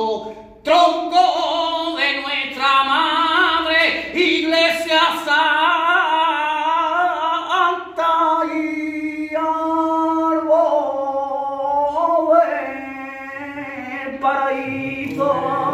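A male flamenco cantaor singing a martinete unaccompanied, holding long notes bent through wavering melismatic ornaments, with brief breaths between phrases.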